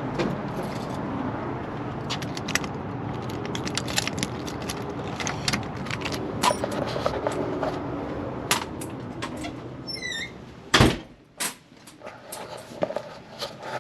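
Steady low rumble with many scattered clicks and rattles, which drops away about ten seconds in; a single loud thump follows, then a few quieter knocks.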